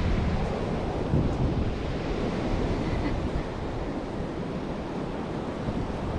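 Strong wind buffeting the microphone over the sound of ocean surf, a steady rushing noise heaviest in the low end.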